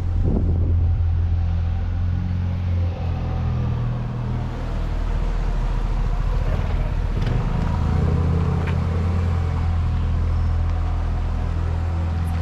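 A large engine running with a steady low drone, easing slightly about three seconds in and building up again from about five seconds.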